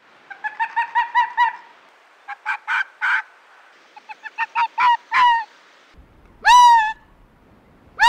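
Arctic fox barking: quick runs of short, high yaps, then two longer, louder screeching barks that rise sharply and fall, the second right at the end.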